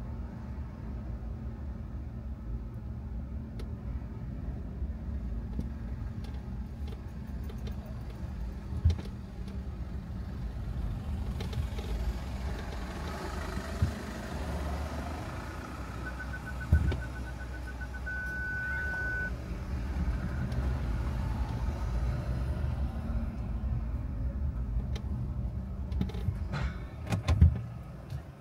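Car moving slowly with a steady low engine and road rumble. Partway through, a parking sensor beeps faster and faster until it holds one steady tone. There are a few short knocks, the loudest near the end.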